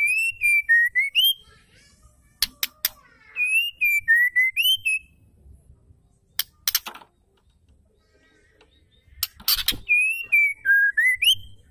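White-rumped shama singing the same short whistled phrase three times, a wavering whistle that dips and then rises at the end, with thin high notes over it. Sharp dry clicks come between the phrases.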